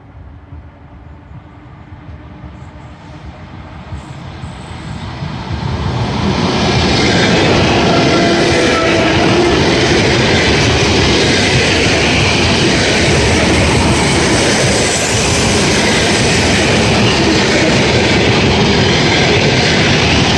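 ED4M electric multiple unit approaching and passing: the rumble of its wheels on the rails grows louder over about seven seconds, then holds as a steady, loud rush as the carriages go by.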